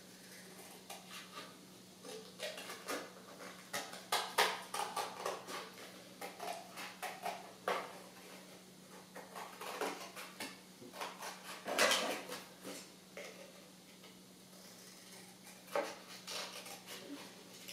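Scissors cutting a paper plate: a run of irregular short snips, with gaps between cuts, over a faint steady hum.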